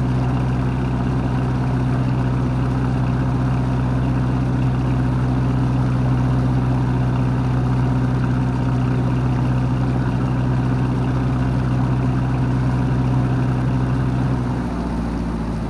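Boat engine running steadily with a low, even hum; its main tone drops away and the level dips slightly near the end.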